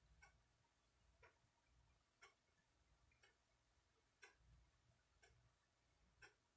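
Faint ticking of a clock, one evenly spaced tick each second, in a near-silent room. Faint low rumbles come and go underneath.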